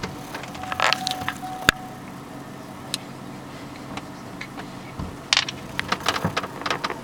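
A hand patting a baby's back to bring up a burp: two runs of quick soft taps and rustles, about a second in and again from about five seconds in, with one sharper click near the end of the first run, over a steady low hum.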